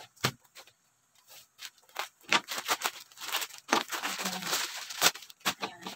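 Plastic courier pouch being cut with scissors, a few short snips, then crinkling and tearing loudly as it is pulled open by hand.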